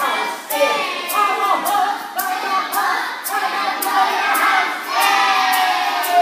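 A woman singing a wordless tune with a group of voices joining in, over a steady beat of sharp claps. About five seconds in, a long held note begins that slides slowly downward.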